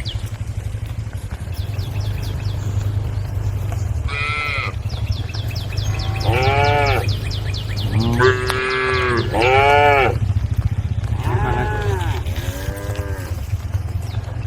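Cattle mooing: about six separate calls, starting about four seconds in, each rising and falling in pitch. Under them run a steady low hum and a fast, even, high-pitched chirping.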